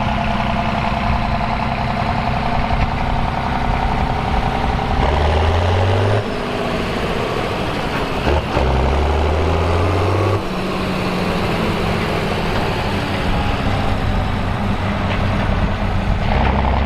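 Tractor diesel engine running steadily under work, with a deeper, louder drone for a few seconds twice, from about five seconds in.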